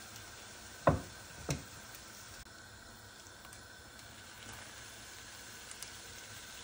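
Raw beef chunks dropped into an oiled non-stick frying pan: two dull, wet thuds about half a second apart.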